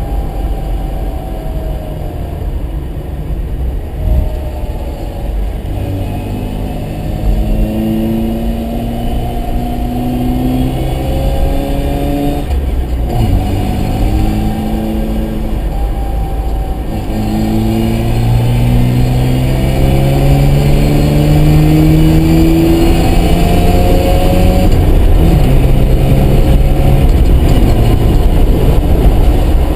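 Mazda RX-7's rotary engine pulling up through the gears under load. The pitch climbs slowly, drops at each shift (about three times), then climbs again, over a steady low road rumble. The car is being driven to test a gearbox that knocks.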